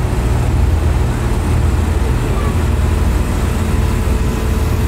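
Diesel engine of a Shinkansen overhead-line maintenance rail vehicle running, a steady low rumble.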